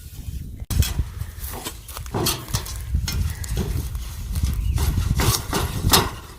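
Irregular whacks and cracks of sticks and a machete hitting overgrown blackberry brush, with rustling and a steady low rumble underneath.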